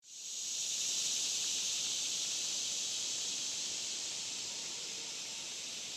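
Steady, high-pitched chorus of insects, fading in at the start.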